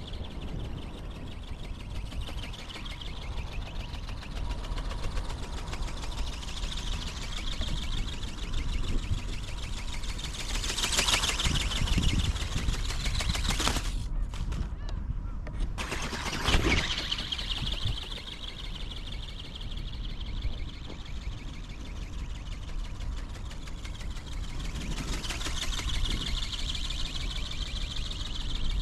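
Whirring of a small RC ornithopter's geared brushless motor and flapping wings, swelling and fading several times as it flies near and away. The sound cuts out briefly about halfway through, over a steady low rumble of wind on the microphone.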